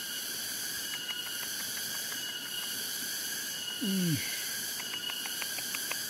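Steady chorus of insects chirring in a rice paddy, with runs of quick ticks about a second in and again near the end. About four seconds in, a short voice-like sound slides down in pitch.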